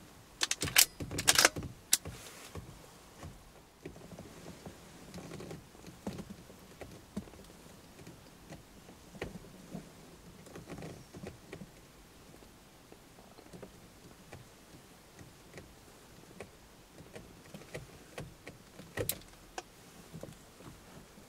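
Faint handling noise: a cluster of sharp clicks and knocks in the first two seconds, then scattered small clicks and rustles, with another sharp click near the end.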